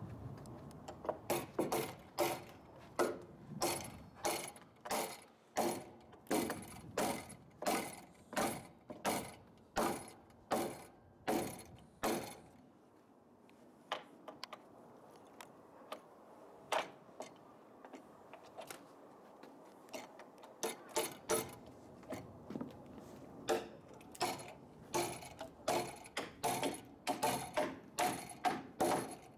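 Hammer driving nails into wooden roof rafters: a steady run of sharp blows, about two a second, with a gap of several seconds in the middle and a quicker run of blows near the end.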